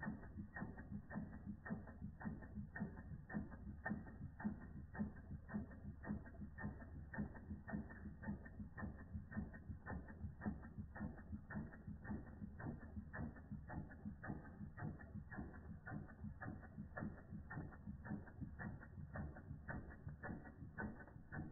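Replica Ernst Plank tripod toy steam engine running steadily under steam, giving an even, fast ticking of several clicks a second.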